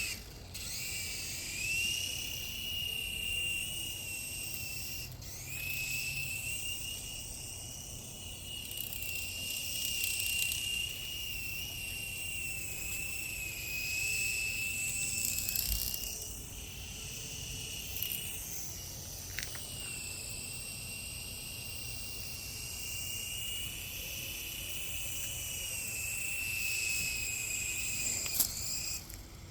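Sky Rover toy RC helicopter's small electric rotor motors whining in flight at a high, wavering pitch. The whine breaks off briefly about five seconds in and dips a couple more times as the throttle changes.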